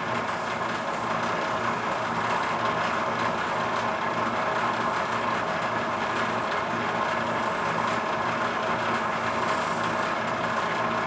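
Lapidary polishing machine running with a steady hum as an opal is held against its spinning felt wheel, wet with cerium oxide slurry.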